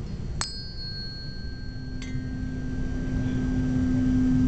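A 256 Hz tuning fork is struck twice, about a second and a half apart, each strike giving a bright metallic ping. Its steady hum then swells louder near the end as the air column in the resonance tube over water is brought into resonance.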